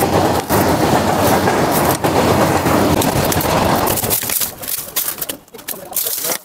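Dense rustling and crackling of dry leaves, twigs and brush, loud for about four seconds, then thinning into scattered snaps and crackles as a snake hook is worked through the brush pile.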